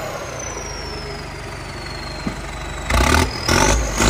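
New Holland 7740 tractor's turbocharged diesel engine running light, its turbo whistle falling away over the first two seconds, then revved in two sharp blips near the end as the turbo whistle rises again.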